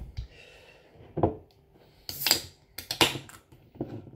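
An aluminium beer can's ring-pull being opened under a cloth: rustling cloth and several sharp clicks, with two short hissing cracks in the second half as the gas escapes. The can is covered in case it foams over like the last one.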